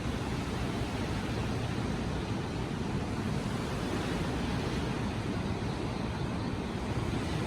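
Steady rush of ocean surf breaking on Waikiki Beach, a continuous low roar with no single wave standing out.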